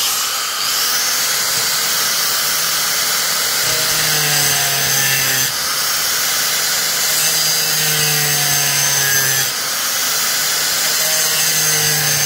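Angle grinder running under load, cutting a slot into a brake pad's friction material to cure the pad's squeal. The motor's pitch sags while the disc bites and recovers between passes, with brief breaks about five and a half and nine and a half seconds in.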